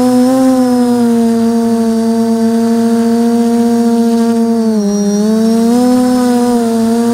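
Motors and propellers of a 550mm quadcopter humming in flight, heard up close from its onboard camera; the pitch sags about five seconds in and climbs back as the motor speed changes.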